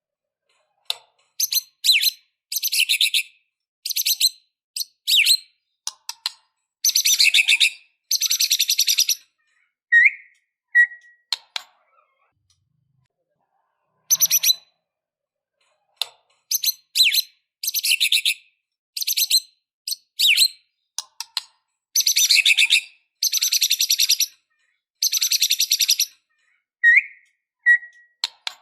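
White-rumped shama (murai batu) singing in loud, rapid phrases of dense high notes, broken by short pauses, with a couple of clear whistled notes.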